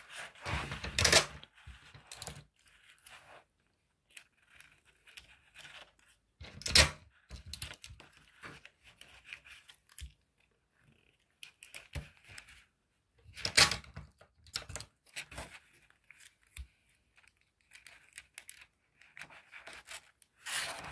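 Adhesive tape pulled off and torn, four times several seconds apart, to tape shut a folded paper box. Paper rustling and crinkling fills the gaps as the paper is handled.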